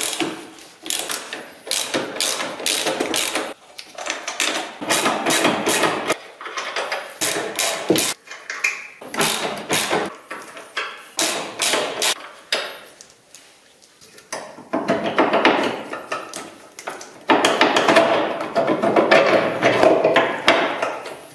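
Hand tools knocking and clattering on metal while the gearbox mount is unbolted and removed: a long run of sharp knocks, several a second, with a short lull about two-thirds through.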